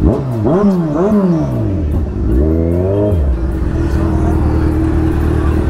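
Kawasaki Z1000's inline-four engine with a loud exhaust, blipped up and down twice in quick succession, revved once more a couple of seconds in, then settling to a steady idle.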